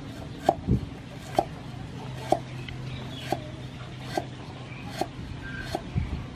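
Cleaver chopping lemongrass stalks on a thick round wooden chopping block, a sharp knock about once a second.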